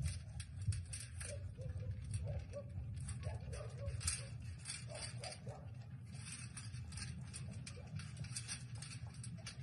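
A dog eating dry kibble from a metal bowl: rapid, irregular crunching and small clicks of kibble and bowl, over a low steady rumble.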